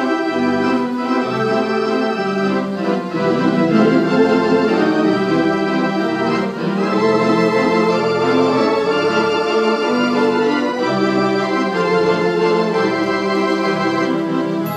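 Theatre pipe organ played live: full held chords with moving melody notes over a steady bass, picked up on a phone's microphone.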